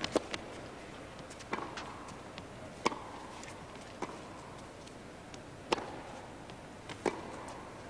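Sharp single knocks of a tennis ball, spaced a second or more apart, as the server bounces it on the court before serving, then the racket striking the serve about seven seconds in. Under them is a faint, steady crowd hush in the arena.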